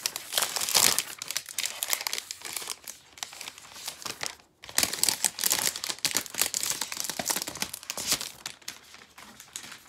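Thin plastic protective sleeve crinkling and rustling as it is pulled off a new tablet. It comes in two long spells with a brief pause about halfway, then tails off near the end.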